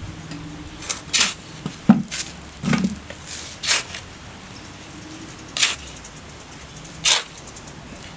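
Short, irregular scraping swishes, about eight in all, with two dull knocks about two and three seconds in.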